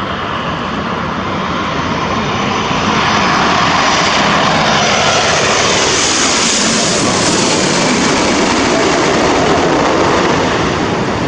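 Japan Airlines Boeing 787-9 passing low overhead on landing approach, its GEnx turbofan engines making a steady jet noise that swells to its loudest about six seconds in and then eases off.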